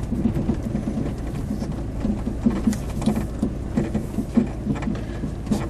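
Pickup truck driving slowly, heard from inside the cab: a steady engine drone with uneven low thumps a few times a second.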